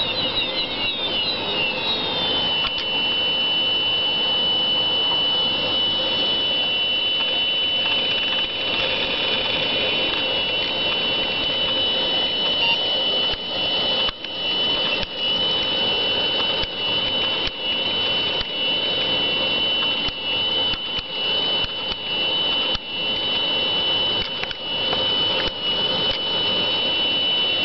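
Old broken IDE hard drive running with its cover off, making a lot of noise: a steady high-pitched whine over a rough hiss. In the first couple of seconds several sliding tones settle into one steady whine, and from about halfway on the sound keeps stuttering with brief irregular dips and clicks.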